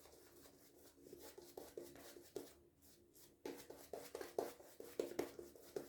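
Shaving brush with a synthetic timberwolf knot building a second soap lather, heard as faint soft wet brushing strokes that quicken to about four or five a second in the second half.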